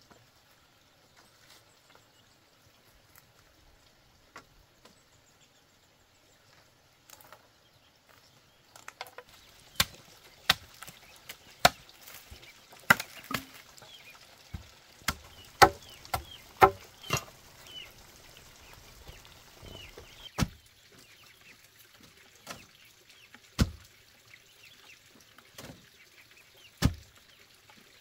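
A blade chopping at the end of a bamboo pole: a quick run of sharp chops, about two a second, starting about a third of the way in. It then slows to a few heavier, spaced knocks.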